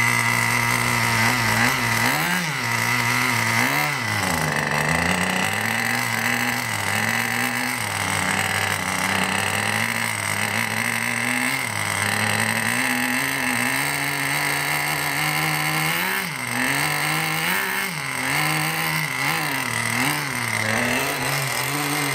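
Small glow-plug (nitro) engine of an RC monster truck running, its pitch rising and falling again and again as the throttle is opened and closed.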